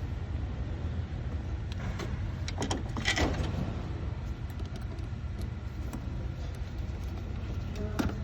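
Hose clamps on an intake pipe being tightened with a hand tool: a few light clicks and scrapes about two to three seconds in and again near the end, over a steady low hum.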